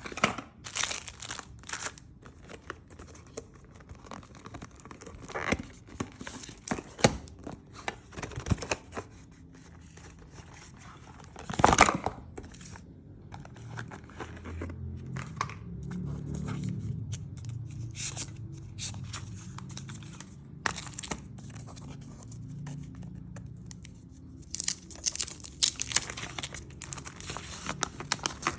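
Phone packaging being opened by hand: plastic wrap and film tearing and crinkling, with scattered clicks and knocks of the box and parts being handled, one louder knock about twelve seconds in.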